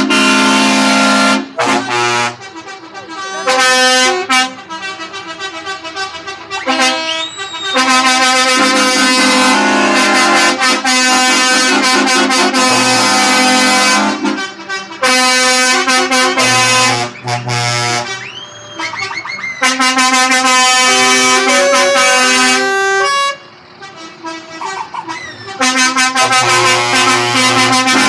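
Heavy-truck air horns sounding in long, loud blasts, several tones at once, the notes changing in steps like a tune, with short breaks between blasts.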